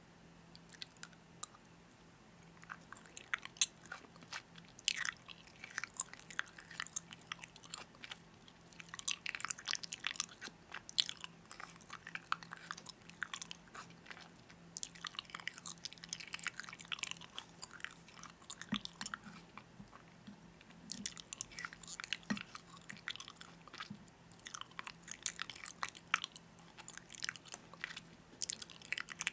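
Close-up crunchy chewing and biting: irregular bursts of crackling crunches that come and go in clusters, over a faint steady hum.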